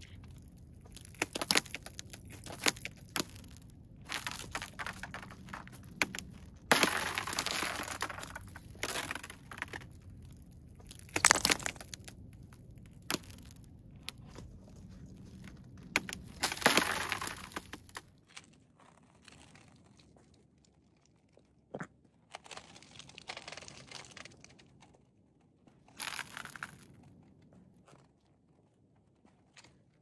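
Thin ice cracking and crunching under boots stepping slowly over it, with sharp cracks and several longer crackling crunches. About halfway through it thins out to a few scattered cracks.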